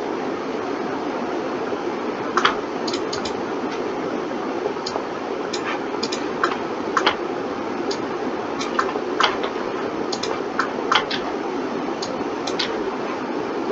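Computer mouse and keyboard clicking irregularly, single clicks and quick runs of two or three, over a steady hum.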